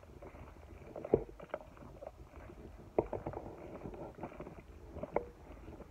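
Handling noise from a handheld camera rubbing against a fleece jacket: a low rustle with a few sharp knocks, the loudest about a second in and at about three seconds, another near five seconds, mixed with steps in dry grass.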